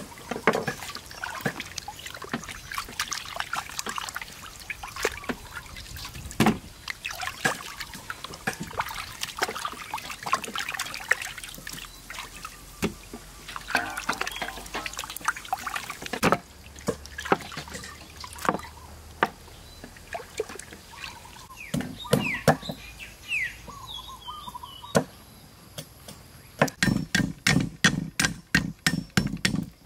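Water splashing and trickling as chicken legs are rubbed and rinsed by hand in a metal basin. After a change about halfway, a few scattered knocks follow, and near the end comes a fast run of cleaver chops on a wooden chopping board.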